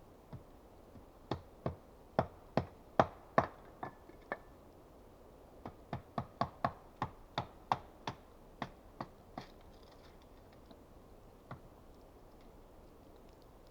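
A tool striking wood: sharp knocks in two runs, about eight and then about a dozen slightly faster, with a single knock near the end.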